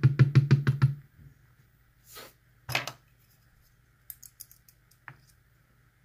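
Small metal lock plug rattled and knocked to free its last, hidden pin tumbler: a fast run of about ten knocks a second for the first second, then a scrape, a sharp click and a few light clicks of small metal parts.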